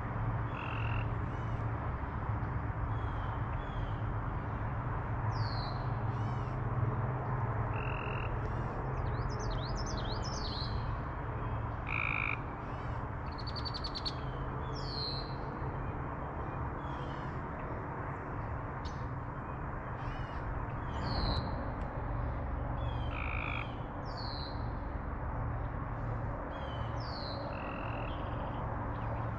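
A continuous chorus of frogs calling from the lake, a dense low pulsing drone, with birds singing short chirps and quick high whistled notes over it at intervals.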